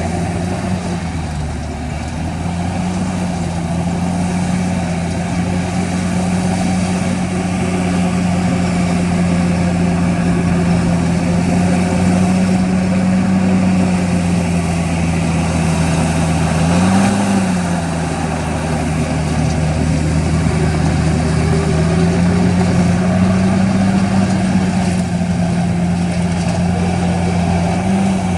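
Heavy diesel engine of earthmoving machinery running steadily, with a few brief rises in engine speed.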